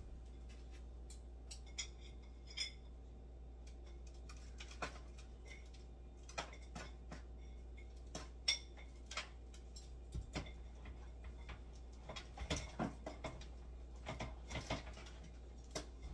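Cutlery clinking and scraping on a plate in irregular clicks and knocks, busiest about three-quarters of the way through, over a low steady hum.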